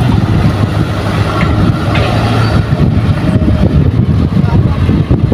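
Diesel engine of a loaded light dump truck running steadily as it drives off over a dirt track.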